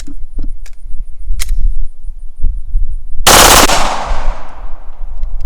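Short unsuppressed full-auto burst of Winchester ammunition, the shots running together into one loud report about half a second long, ringing out over the next second and a half. Light clicks of the gun being handled come before it.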